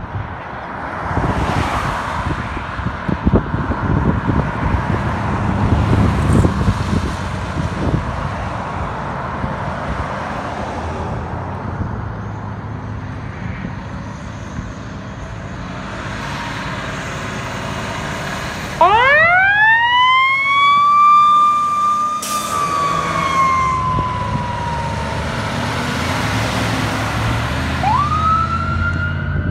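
Emergency vehicles responding: heavy engines and road noise rumble at first. About two-thirds of the way through, a siren winds up sharply into a wail and slowly falls. Near the end the siren rises again.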